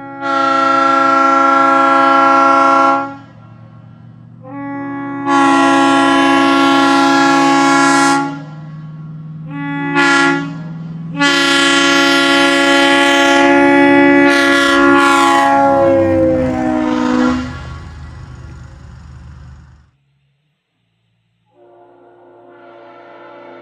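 Multi-chime locomotive air horn sounding the railroad grade-crossing pattern: two long blasts, a short one, then a long one whose chord sags in pitch and fades away. After a brief silence a second, quieter horn chord starts near the end.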